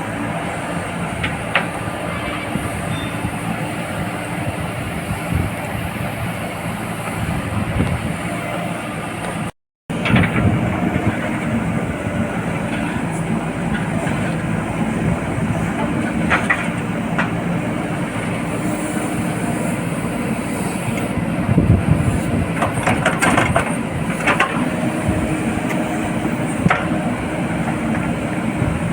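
A JCB 4DX backhoe loader's diesel engine runs steadily, with occasional short metallic clanks from the machine at work. The sound drops out completely for a moment about ten seconds in.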